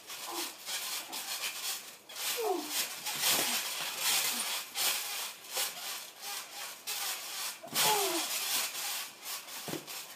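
Kids wrestling on a trampoline: irregular thumps and rasping scuffs as bodies land, bounce and slide on the trampoline mat.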